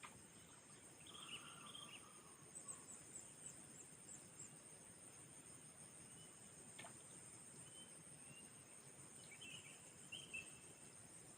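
Faint, steady high-pitched chorus of crickets or similar insects, with a few short bird calls about a second in and again near the end.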